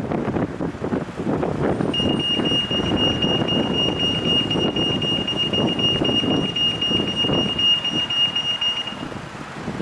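Pedex pedestrian crossing's audible signal beeping rapidly at a single high pitch for about seven seconds, starting about two seconds in, telling pedestrians it is safe to cross. Low traffic rumble and wind noise run underneath.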